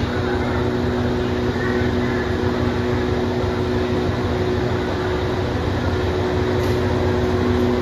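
Diesel-electric locomotive's engine running steadily close by, a constant drone with a steady hum in it. The locomotive has just been uncoupled from its train.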